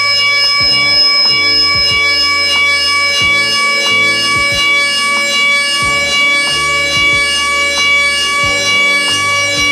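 DATRON high-speed milling spindle whining on a steady high pitch as its end mill cuts an aluminium disc, with a lower cutting sound that shifts in steps and a faint tick about every two-thirds of a second.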